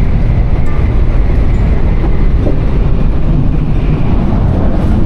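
Shinkansen bullet train moving past the camera, a loud, steady low rumble.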